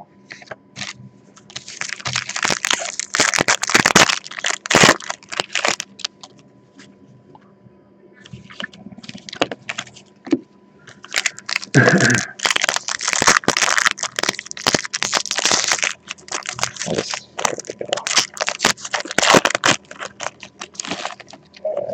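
Trading card packs being torn open, their wrappers crackling and crinkling with many sharp clicks, in two longer spells of tearing and handling.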